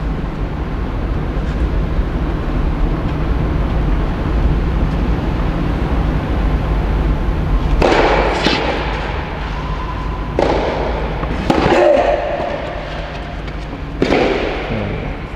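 Tennis rally: racket strikes on the ball echoing around the indoor hall, with four loud hits from about eight seconds in, the last of them a volley at the net, over a steady low hum.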